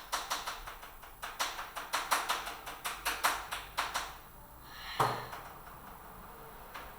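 A quick run of sharp knocks, about three to four a second for some four seconds, then one louder knock with a low thud about a second later.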